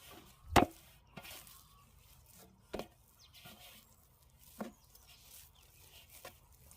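Chopping: sharp strokes about two seconds apart, the first the loudest, with a lighter knock near the end.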